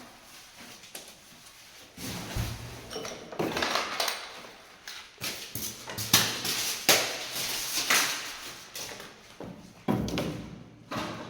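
Irregular scraping, knocking and rustling of loose building materials and boxes being handled, dragged and set down. It is quiet for the first two seconds, then the scrapes and knocks follow one another at uneven intervals.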